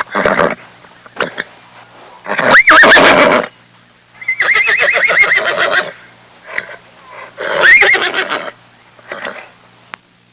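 Horse neighing: three loud, quavering whinnies with shorter, quieter sounds between them.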